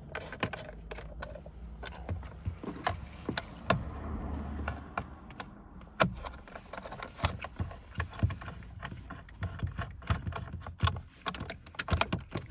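Irregular clicks and knocks of a T30 Torx bit and driver as the rev counter's bolts are screwed back in, with a sharper knock about six seconds in.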